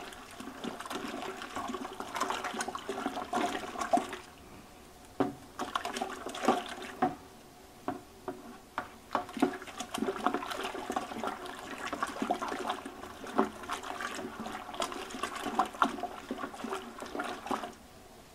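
Wooden spoon stirring dry malt extract into hot water in a large stainless steel brew kettle. Liquid sloshes and the spoon knocks and scrapes irregularly against the pot, easing off briefly a couple of times.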